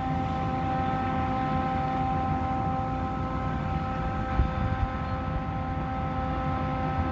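A wood chipper and a street sweeper running at the same time: a steady, even whine from the chipper's fan and the sweeper's vacuum blower, over a low mechanical rumble. A brief low thump comes about four seconds in.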